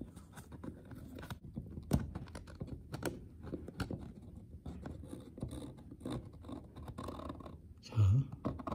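Faint scratching and scraping of a super glue bottle's plastic nozzle against the torn edge of textured ceiling wallpaper as glue is worked into the split seam, with small irregular clicks and a sharper one about two seconds in.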